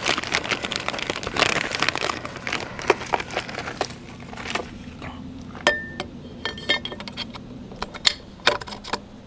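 Metal propeller parts being handled and fitted: a folding-propeller blade going into its hub on a saildrive leg, with a stretch of rustling and small clicks, then a few sharp metallic clinks, one of which rings briefly.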